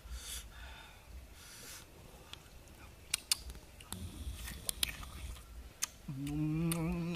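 A person eating: a few soft crunches and sharp clicks of biting and chewing. About six seconds in comes a steady hummed "mmm", the loudest sound here.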